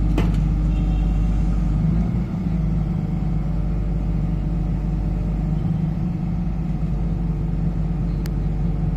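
Heavy diesel engine of a rotary piling-rig setup running steadily, a low even drone.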